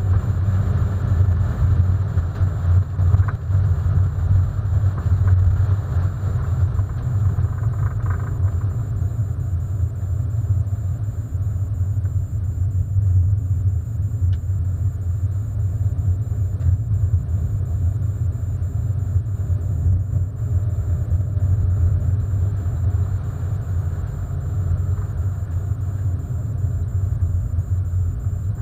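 1998 Hyundai Coupé's 1.6-litre 16-valve engine running as the car drives, a steady low rumble throughout. Its higher tones drop away about eight seconds in.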